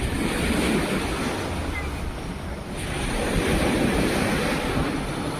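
Sea of Azov waves washing onto the shore, two surges about three seconds apart, with wind buffeting the microphone.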